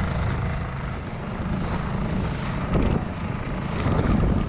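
Dense, low rumbling noise with no clear tone, swelling louder about three seconds in and again near the end.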